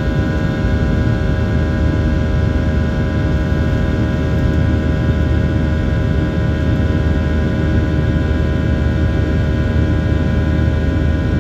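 Airliner cabin noise during the climb after take-off: steady engine and airflow noise, heaviest in the low end, with several steady high tones running over it.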